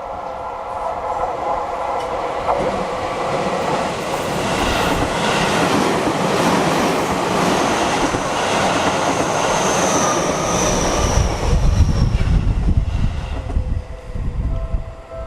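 Seibu Shinjuku Line train passing over a level crossing. The crossing's warning bell rings steadily at the start and is then drowned out as the train's wheels rumble through with a rhythmic clatter over the rail joints. A brief high wheel squeal comes about ten seconds in, then a heavy low rumble builds before the train noise falls away suddenly near the end.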